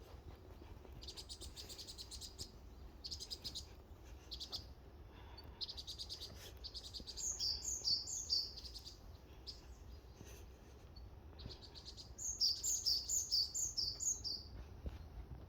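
Forest songbirds singing: short, buzzy high trills early on, then two loud phrases of five or six quick, high, down-slurred notes, about eight and thirteen seconds in.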